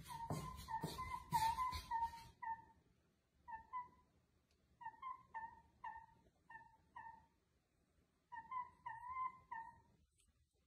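Owl giving a long series of short, high squeaky calls, each brief and rising then falling, in runs of several with short pauses between runs. During the first two seconds footsteps on wooden stairs knock beneath the calls.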